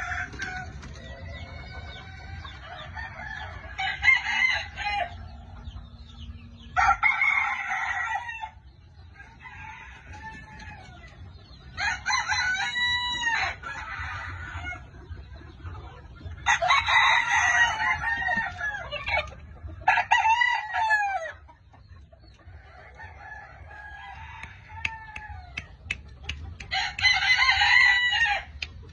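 Rooster crowing again and again, about six loud crows each a second or two long, with quieter clucking calls between them.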